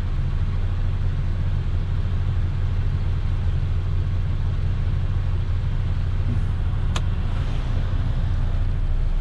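Semi-truck diesel engine running steadily at low revs, heard from inside the cab. There is a single sharp click about seven seconds in.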